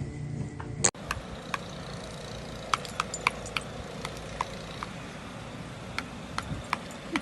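Scattered light clicks and taps, irregularly spaced, over a steady low background rumble; a short stretch of music cuts off abruptly about a second in.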